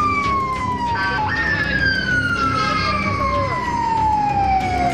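Emergency vehicle siren sounding in long, slow falling sweeps, jumping quickly back up to a high pitch about a second in and sliding down again, over street noise.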